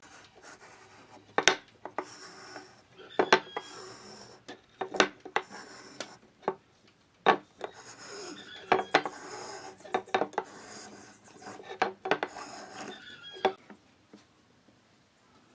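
Marking gauge scribing along a wooden post: several scraping strokes, mixed with sharp knocks of wood and tools being handled on the workbench.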